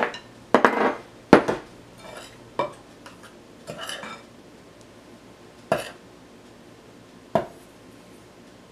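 A spoon and measuring cup knocking and clinking against glass mixing bowls while flour is scooped out: several separate sharp knocks, with a couple of short scraping rustles between them.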